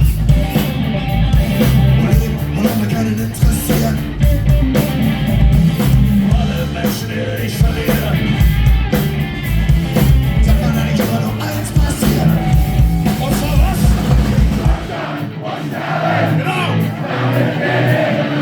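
Punk rock band playing live and loud, with drums, distorted guitars and shouted singing. About fifteen seconds in, the bass and drums drop away, leaving guitar and voices.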